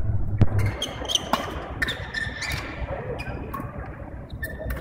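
Badminton rally: quick racket strikes on the shuttlecock mixed with sharp shoe squeaks on the court floor, scattered irregularly. A steady low hum cuts off shortly after the start.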